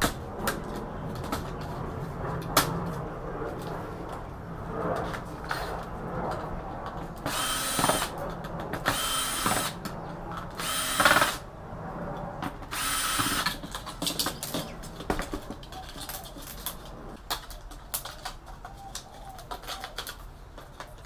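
A cordless power drill runs in four short bursts of about a second each, backing out the screws that hold the TV's main board. Between the bursts come small clicks and rattles of cables and connectors being handled.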